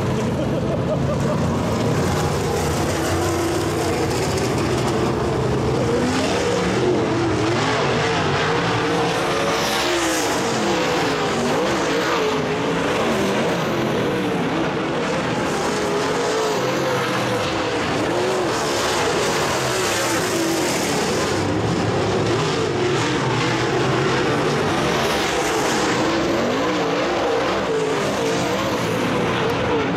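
Several dirt late model race cars' V8 engines running practice laps together, their overlapping engine notes rising and falling in pitch as the cars lap the oval, at a steady overall loudness.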